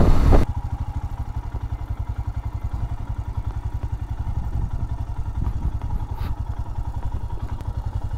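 Royal Enfield Himalayan's single-cylinder engine idling with an even, rapid thumping of about ten beats a second. The first half second is a louder rush of riding wind before a sudden cut to the idle.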